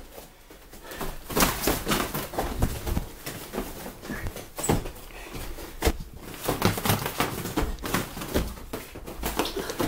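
Boxing gloves landing punches in a fast, irregular series of slaps and thuds, with feet moving on the floor.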